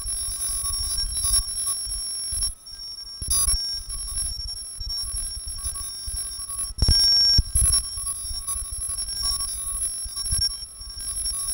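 Real-time generative electronic sound driven by a Mandelbox fractal algorithm, made without samples or conventional synthesis: steady high, piercing ringing tones over a crackling, stuttering texture and low rumble. A louder burst comes about seven seconds in, and there are a few brief drop-outs.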